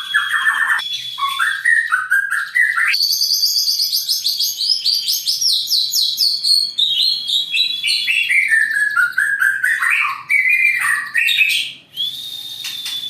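White-rumped shama (murai batu) singing a long, unbroken, varied song: sliding whistled notes, a fast high trill through the middle, and a long held whistle near the end.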